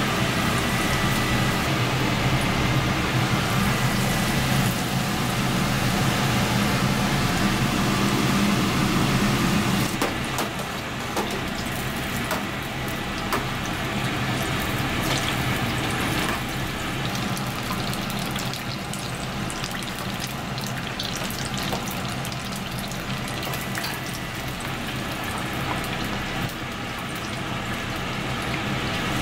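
Battered tempura frying in a commercial deep fryer of hot oil: a steady crackling sizzle. A low steady hum underneath quietens about ten seconds in.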